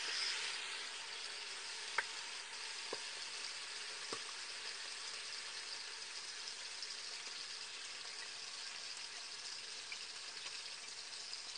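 Chunks of veal sizzling steadily in hot oil in a pot as they are seared, with a few faint taps in the first few seconds.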